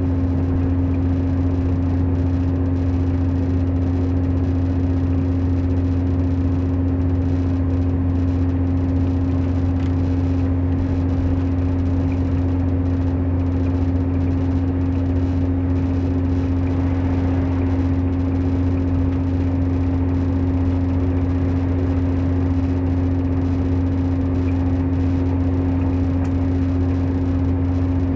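Class 168 Turbostar diesel multiple unit heard from inside the passenger saloon. Its underfloor MTU 6R 183TD13H six-cylinder diesel engine drones at a steady pitch over a constant rumble of the train running.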